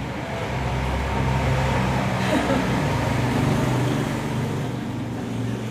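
A motor vehicle's engine rumbling low and steady, growing louder over the first couple of seconds and easing off near the end.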